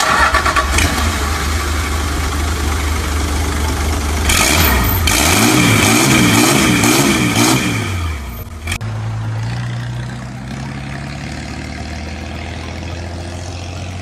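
Toyota 2H six-cylinder diesel engine in a Land Cruiser HJ47 running, revved up and down several times, then settling to a steady idle about nine seconds in.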